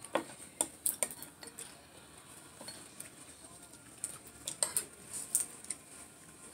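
Scattered light clinks and taps of a metal spoon against ceramic bowls and plates, with soft handling of food, coming in two brief clusters.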